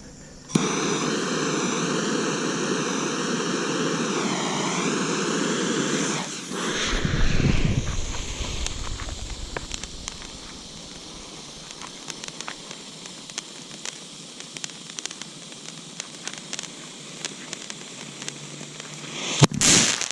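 Showtime consumer firework fountain going off. It starts with a loud steady hiss carrying a whistling tone for about six seconds, and there is a low boom about seven seconds in. A long, quieter crackle of many small pops follows, with a louder burst near the end.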